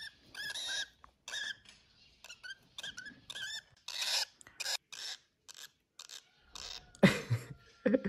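Baby lovebird chicks giving short, raspy begging calls in quick runs, with a few scrapes or rustles about four to five seconds in.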